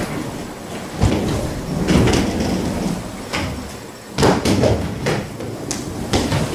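Quad roller skate wheels rolling across a hardwood floor, a steady rumble that swells and fades with each push, with sharp knocks as the skates strike the floor about a second in and twice more in the second half.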